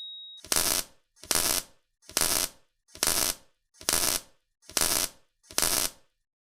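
Electric zap sound effect: seven short crackling bursts about one a second, each cut off sharply, following the fading end of a ding.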